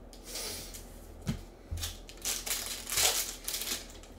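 Crinkling and rustling of plastic wrappers as trading cards are handled, in several short bursts, with a couple of light knocks of hard plastic card cases.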